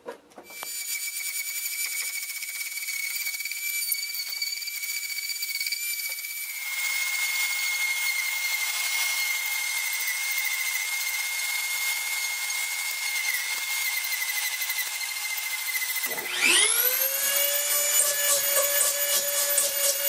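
A corded handheld power carving tool runs with a steady high-pitched whine as it cuts into foam, with a vacuum cleaner running beside it to catch the dust. The noise gets fuller about seven seconds in, and near the end a motor spins up with a rising whine and settles at a steady pitch.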